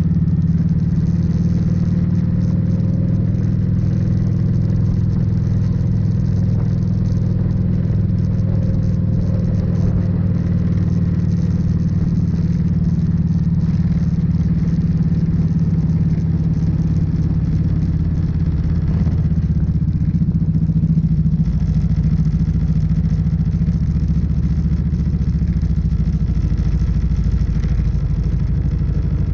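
Kawasaki Vulcan cruiser motorcycle's engine running steadily at an easy parade pace, a low even drone with no gear changes or revs.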